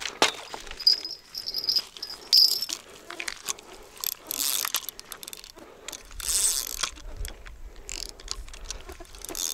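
Fishing reel being cranked, its gears and ratchet clicking and whirring, as line snagged on rocks is wound in. A couple of short hissing rushes come in the middle.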